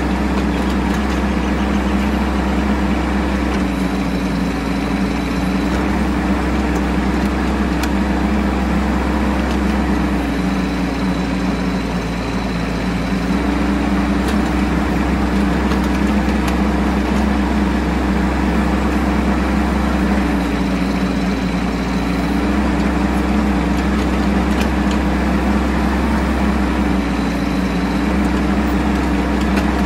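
Bobcat E10 mini excavator's diesel engine running steadily. Its note drops slightly in pitch for a few seconds at a time, four times, as the engine is loaded.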